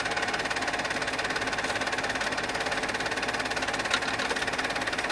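Film projector running: a steady, fast, even mechanical clatter, the sound of silent 8 mm home-movie film being projected and recorded during transfer. A single sharp click comes about four seconds in.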